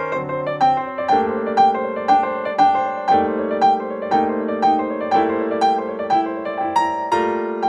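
Background piano music: a gentle melody of evenly spaced notes, about two a second, over held chords.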